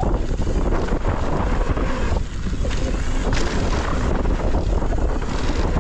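Wind buffeting the microphone of a camera on a mountain bike riding fast down a dirt trail, with a steady heavy rumble and scattered clicks and knocks from the tyres and the bike.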